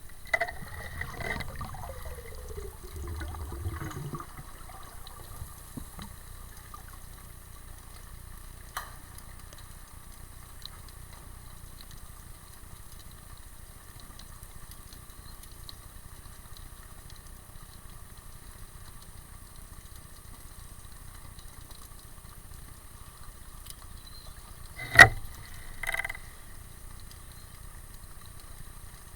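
Muffled underwater noise picked up by a camera in a waterproof housing: a steady hiss, with a low rumble and a falling tone in the first four seconds. A sharp loud crack comes near the end, followed by a smaller one about a second later.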